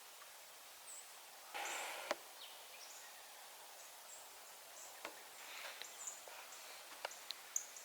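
Quiet woods: a faint rustle with a sharp click about two seconds in, then a scatter of small clicks and brief faint high chirps.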